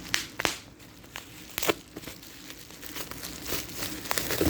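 Bubble wrap crinkling and tearing as taped wrapping is pulled off a phone, with a few sharp crackles.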